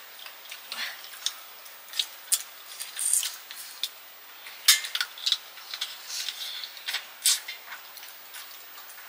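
Someone eating dhido (millet porridge) with chicken curry: short wet smacks and clicks of chewing, scattered irregularly, over a faint hiss.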